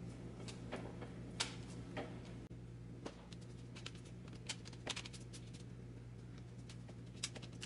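Faint, scattered light taps and clicks of a silicone pastry brush dabbing egg wash onto scone dough on baking parchment, over a steady low hum.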